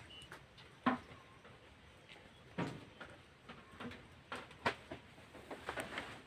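Dogs play-fighting: a string of short, sudden noises a second or so apart, bunching up near the end.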